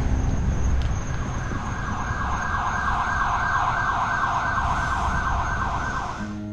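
Emergency vehicle siren sounding with a fast, rapidly wavering pitch. It comes in about a second and a half in and stops just before the end, over a low rumble.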